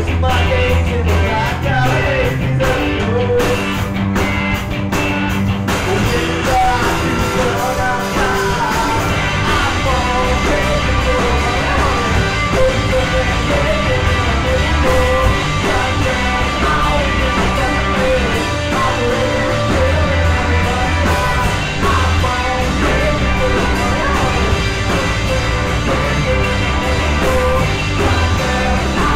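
Live rock band playing electric guitars, bass guitar and drums, with a man singing lead vocals over them.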